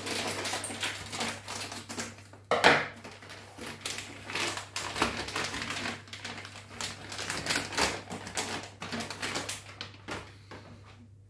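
Dense crackling and rustling of plastic with rapid small clicks, and one sharper click about two and a half seconds in, as a new reverse-osmosis membrane is unwrapped from its plastic bag.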